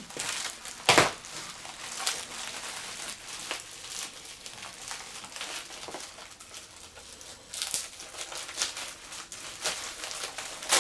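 Packaging crinkling and rustling in irregular bursts as a parcel is opened and its contents unwrapped, with one sharper knock about a second in.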